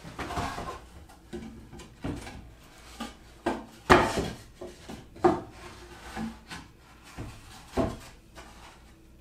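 A T1-11 plywood back panel knocking and scraping against a pallet-wood cabinet frame as it is pushed into the opening by hand to check its fit. Several sharp wooden knocks, the loudest about four seconds in, with faint rubbing between.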